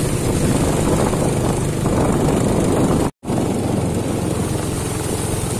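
Underbone motorbike's single-cylinder engine running at low speed through shallow floodwater, with a steady hiss of the tyres through the water. The sound breaks off for an instant just past halfway.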